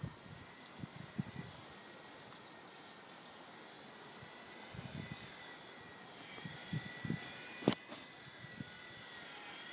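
Insects chirring in a steady, high, even hiss, with a faint thin steady tone from about halfway through and a single sharp click about three-quarters of the way in.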